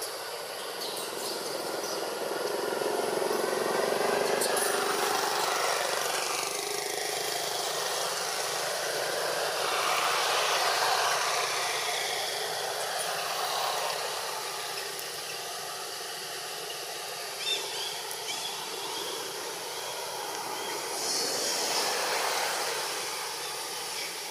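Outdoor rushing noise that swells and fades three times, with a brief sharp tick about seventeen seconds in.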